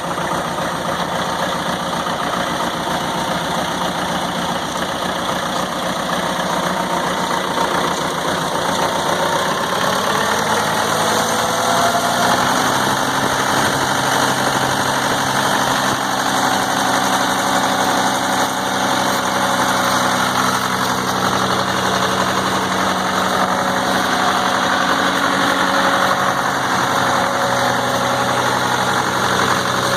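Case 580B backhoe's engine running at a low speed, then rising in pitch over a few seconds about ten seconds in and holding steady at a higher speed.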